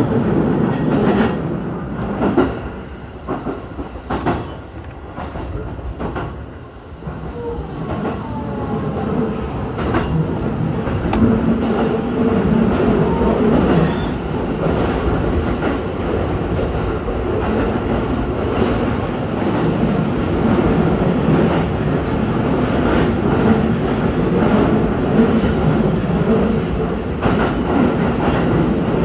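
Electric commuter train running between stations, heard from inside the train: a steady rumble of wheels on rail with repeated clicks over the rail joints. It is quieter for a few seconds near the start, then grows louder and steady from about seven seconds in.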